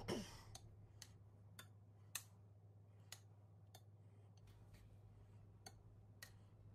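Near silence: faint, scattered light clicks, about one or two a second, over a low steady hum.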